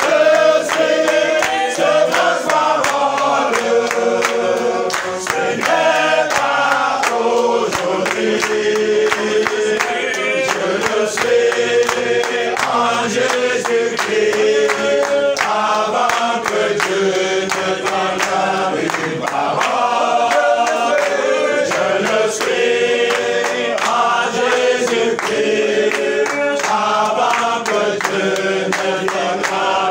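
A group of men singing a worship song together, with hand claps keeping a steady beat.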